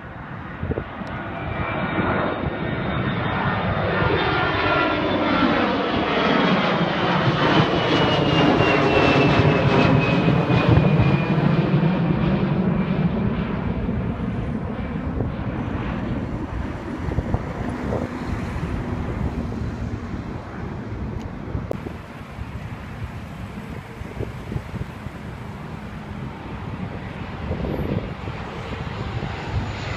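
Airliner passing low overhead. Its engine noise grows louder to a peak about ten seconds in and then slowly fades, with a high whine that falls in pitch as it goes by.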